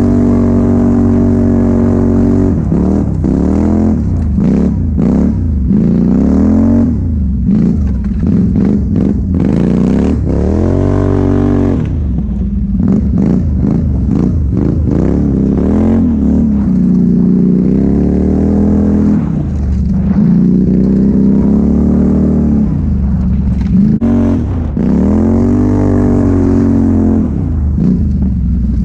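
Straight-piped Can-Am quad's engine running steadily for a couple of seconds, then revving up and down again and again as the throttle is worked: quick rises and drops at first, longer climbs and falls later.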